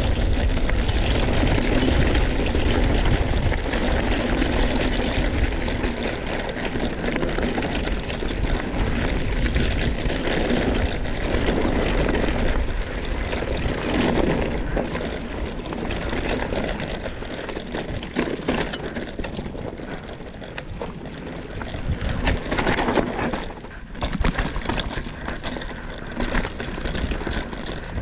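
Mountain bike ridden downhill over a gravel and dirt trail: steady rushing air noise on the microphone with tyres crunching over loose stones, and clattering knocks from the bike over rough ground in the second half.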